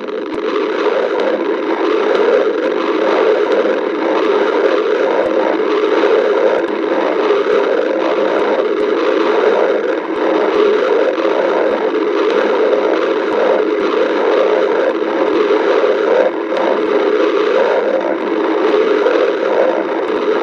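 A badger's stomach growling: a continuous, rough rumbling that flickers slightly but never stops.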